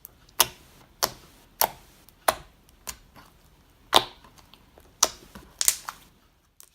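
Thick, glossy slime making a run of sharp bubble pops and clicks, roughly one every half second to a second.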